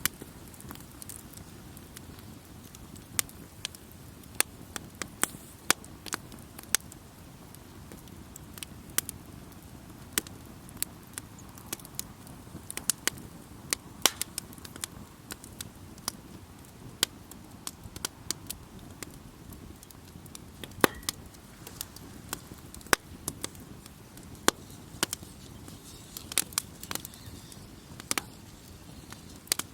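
Wood campfire crackling: irregular sharp pops and snaps, some single and some in quick clusters, over a steady low rumble.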